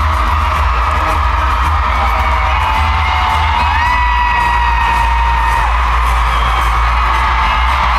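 Live pop band music played loud through an arena PA, with heavy bass and a high melody line that slides up about halfway through and is held for a couple of seconds.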